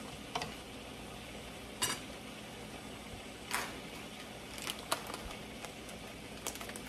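Wooden spatula stirring and knocking in a frying pan of stew, a few separate sharp knocks. Near the end, a plastic bag crinkles as it is handled.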